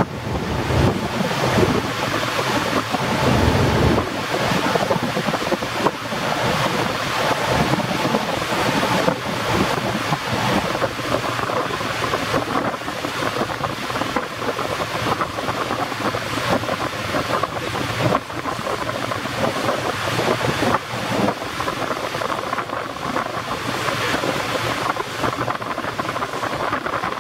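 Steady rushing noise of wind on the microphone and open water, with the foilborne Boeing Jetfoil's waterjet and engines blended into it, and gusty low buffeting in the first few seconds.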